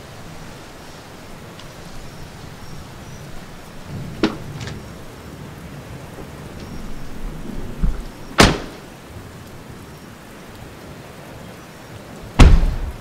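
Steady hiss of rain falling, with a couple of sharp knocks partway through and a heavy thump near the end that fits a car door shutting.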